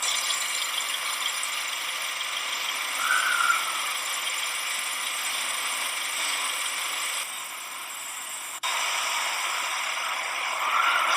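Steady rattling machine noise of a helicopter, dipping a little about seven seconds in and returning sharply after a brief break.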